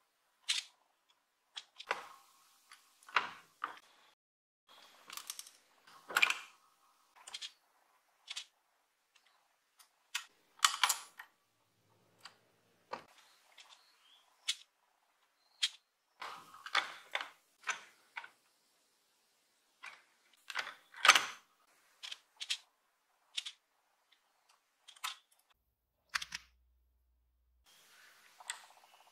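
Lee Pro 1000 progressive reloading press being worked on 9mm cases: an irregular string of metallic clicks and clacks with a few short rattles as the shell plate indexes the cases from station to station.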